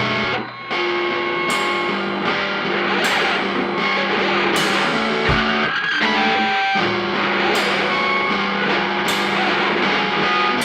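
Rock band playing live in a quieter passage: electric guitar notes ringing over drums, with a cymbal struck about every second and a half and little bass underneath.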